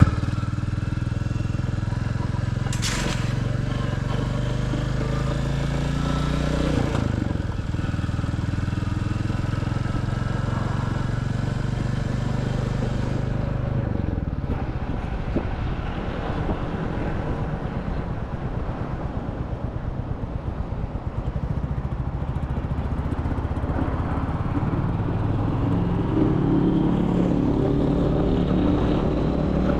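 Royal Enfield Classic 350's single-cylinder engine under way: a steady run at first, with a brief sharp noise about 3 s in. Around the middle the engine settles to slow, even thumps of its firing strokes, then picks up in pitch again near the end.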